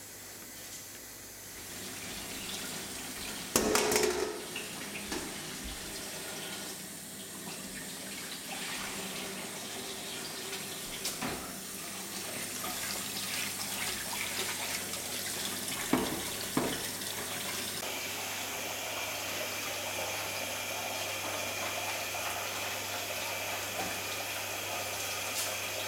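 Kitchen tap running steadily into a stainless-steel sink as a pan is washed under it, with a few sharp knocks of things handled in the sink, the loudest about three and a half seconds in.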